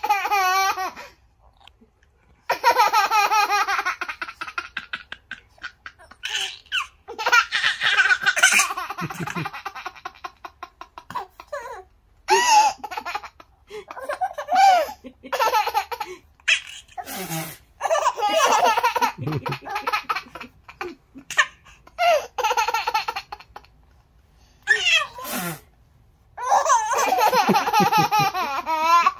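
Baby laughing in repeated high-pitched fits, each a second to a few seconds long, with short pauses between.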